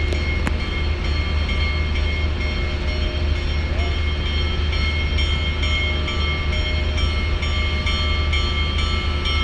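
Union Pacific Big Boy steam-hauled train rolling steadily on the rails: a constant low rumble with several steady high-pitched tones over it.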